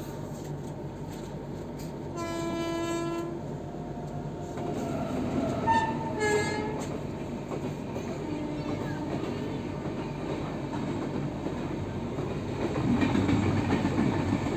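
Indian Railways train running noise heard from a moving train, with two locomotive horn blasts of about a second each: a single-tone blast about two seconds in, and a blast of several notes about six seconds in. A passenger train then rushes past close by on the next track, and the sound grows louder near the end.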